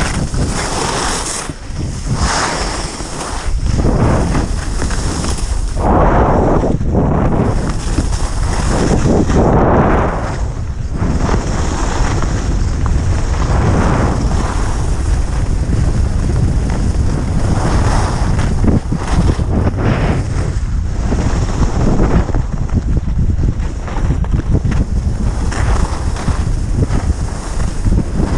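Wind rushing over the microphone of a camera carried by a skier on a groomed run, with the hiss and scrape of skis on packed snow swelling and fading with each turn.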